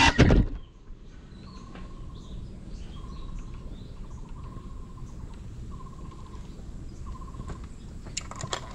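Quiet outdoor ambience under trees with a low rumble, in which a short buzzy call repeats every second or two. Near the end come a few sharp clicks and knocks as the drone on the ground is handled.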